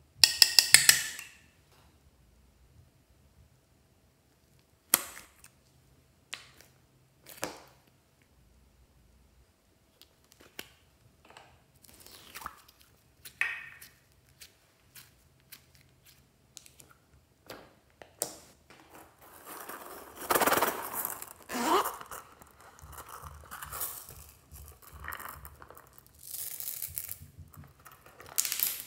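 Glossy slime squeezed, pressed and pulled by hand, making sticky pops, clicks and wet squelches. A quick run of loud pops comes right at the start, then scattered single clicks, and longer, denser squelching through the second half.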